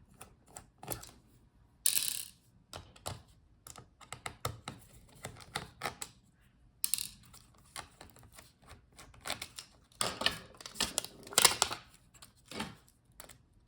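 Irregular clicks, taps and short scrapes of a small screwdriver and handled metal and plastic parts as a laptop's heatsink and cooling fan assembly is taken out, with a louder flurry near the end.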